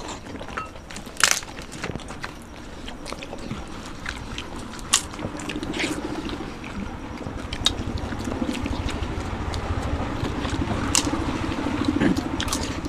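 Eating by hand: scattered sharp crunches and clicks of fried papad being bitten and of fingers working rice off banana leaves, with chewing. A low steady hum sits underneath and grows louder over the second half.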